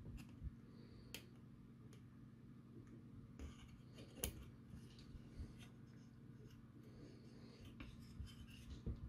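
Faint handling noises: a through-hole resistor's wire leads being bent and pushed into a printed circuit board, with light rubs and a few small clicks, the sharpest about four seconds in, over a steady low hum.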